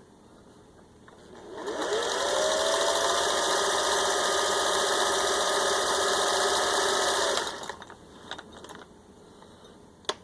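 Singer 401A sewing machine spinning up from rest, its motor pitch rising, then stitching steadily at an even speed for about six seconds on a built-in blind-stitch pattern before stopping. A few light clicks follow near the end.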